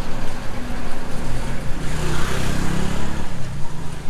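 Street traffic: engines running, with a motor vehicle passing close by about two seconds in, swelling and then fading.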